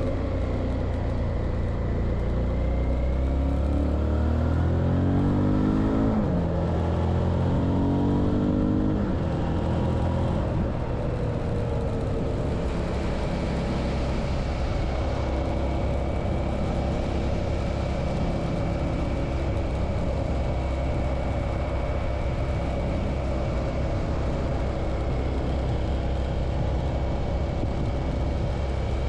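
Suzuki V-Strom 650's V-twin engine accelerating: its pitch climbs twice over the first nine seconds, with a drop between the climbs, then it runs steadily at cruising speed.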